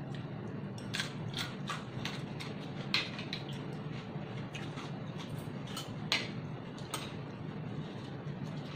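Close-up chewing of crisp raw cucumber slices: irregular crunching crackles, with two sharper clicks about three and six seconds in. A steady low hum runs underneath.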